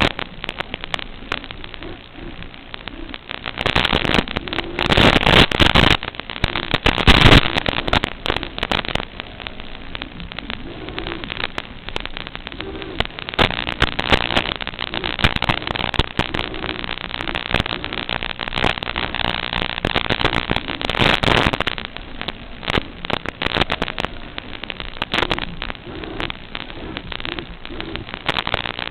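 Crackling static hiss with many sharp clicks, the audio channel of an analog FPV video link as recorded by the goggles' DVR, with louder surges of crackle a few seconds in and again about three-quarters of the way through.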